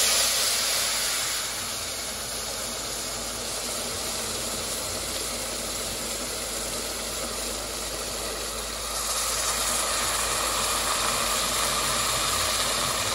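Water poured into a hot pot of rice fried in butter, hissing and sizzling as it hits, then a steady steamy hiss. The hiss gets louder again about nine seconds in.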